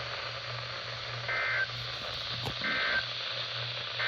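Three short Emergency Alert System SAME data bursts, the end-of-message tones closing a NOAA Weather Radio warning, about a second apart. Under them is steady radio hiss and hum.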